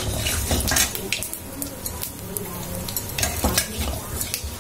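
Panch phoron seeds sizzling in hot oil in a metal kadai, with a metal spatula stirring and scraping them around the pan and making frequent small clicks. This is the tempering stage, with whole spices frying in oil.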